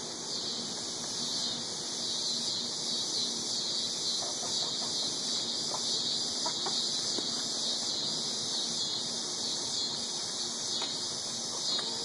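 A hen gives a few brief squawks as she is caught in the coop's nest box, over a steady high-pitched hiss that runs throughout.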